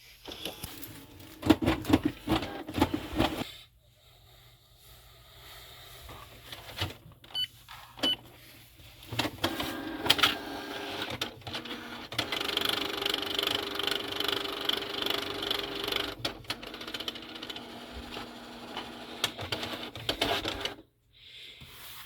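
Canon TR4540 printer's paper feed mechanism running with clicks, rattles and a grinding noise, the fault behind its Error 2110. A clattering burst comes first, then after a quieter spell the feed runs steadily for about twelve seconds and stops suddenly.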